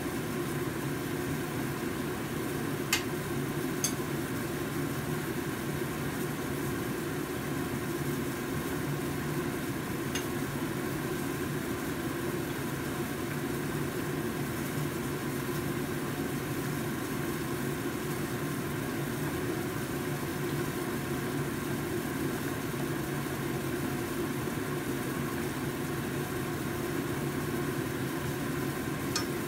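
Soup boiling hard in a stainless steel pot on a gas burner: a steady bubbling rumble mixed with the burner flame, with two small ticks a few seconds in.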